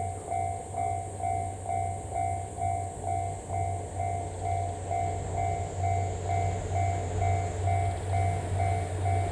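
Japanese railway level crossing warning bell ringing steadily at about two strokes a second, the signal that a train is approaching the crossing.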